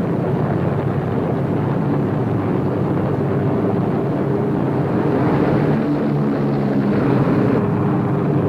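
The four radial engines of a B-17 Flying Fortress droning steadily together in a dense, unbroken roar with a faint steady hum of engine tones.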